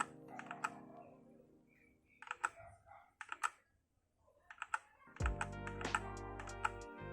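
Keystrokes on a Machenike K500 mechanical keyboard with red linear switches: scattered key presses in small clusters, most likely FN key combinations cycling the lighting effects. Background music plays underneath, fades out midway and comes back louder about five seconds in.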